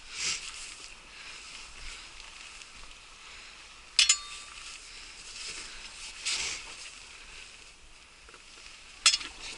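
Someone clambering over large rounded beach boulders: scuffs and steps on rock, with two sharp clinks about four and nine seconds in, the first ringing briefly, over a faint steady hiss.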